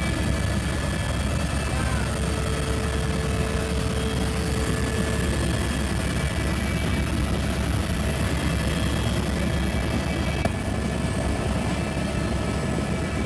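Helicopter in flight heard from inside the cabin: a steady, loud drone of engine and rotor, with one brief click about ten seconds in.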